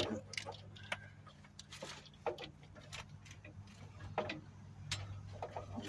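Scattered light clicks and knocks from a plastic fuel line being fed up past a pickup's fuel tank by hand, over a steady low hum.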